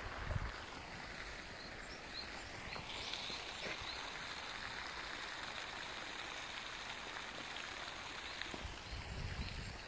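Outdoor ambience: a steady hiss with faint, short, high chirps of small birds. There are low bumps on the microphone just after the start and again near the end.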